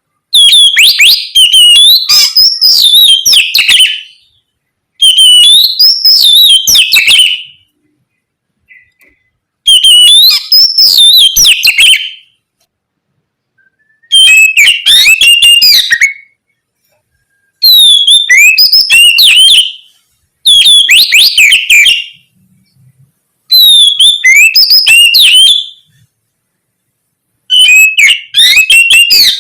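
Oriental magpie-robin singing loud, rapid whistled song phrases in eight bouts of two to four seconds each, with short silent pauses between them.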